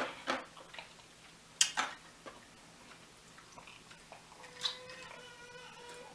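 A few sharp clicks and knocks, the loudest about a second and a half in. Near the end, a faint, held, high-pitched cry from a baby fussing in another room.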